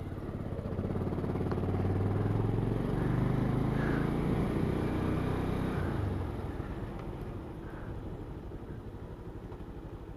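Motorcycle engine running while riding, pulling harder and getting louder about a second in, then easing off about six seconds in.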